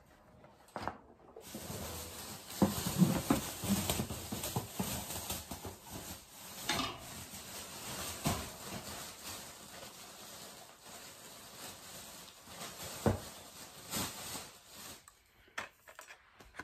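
Metal wire dish drainer and its packaging being handled while it is unpacked: uneven rustling and scraping, with a few sharp knocks and clinks.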